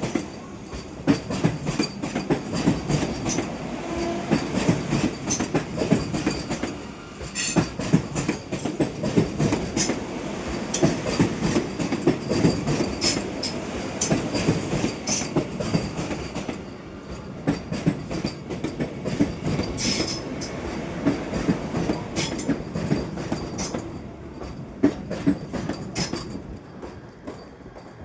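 Vande Bharat Express electric train set rolling past on the track, its wheels clacking over rail joints in a quick, irregular rhythm over a steady rumble, with a faint high squeal. The sound dies away over the last few seconds.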